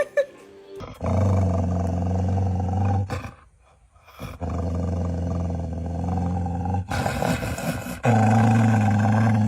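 A low, steady animal growl, held three times for two to three seconds each with short breaks between.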